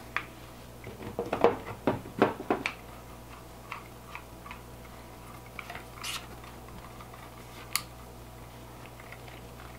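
Clicks and rattles of a small metal-and-plastic tripod being handled and screwed onto a DJI Osmo gimbal handle: a quick flurry of clicks and knocks in the first few seconds, then scattered single ticks.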